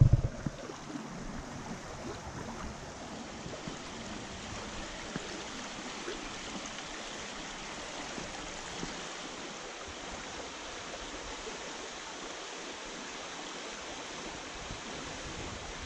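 A fast-flowing river rushing steadily over stones, with a few brief low thumps right at the start.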